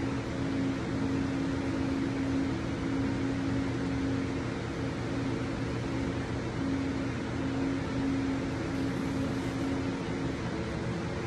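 Electric potter's wheel running steadily with a constant motor hum under a steady hiss, as the wheel spins while a clay vase is smoothed with a rib.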